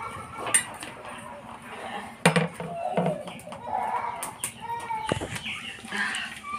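A few sharp knocks and clatters at a wood cooking fire under a wide metal pan, the loudest about two seconds in, with hens clucking and faint voices in the background.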